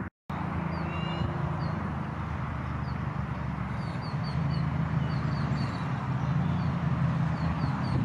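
Small songbirds giving short, high chirps, scattered at first and then several a second from about halfway through, over a steady low hum. The sound drops out for a moment at the very start.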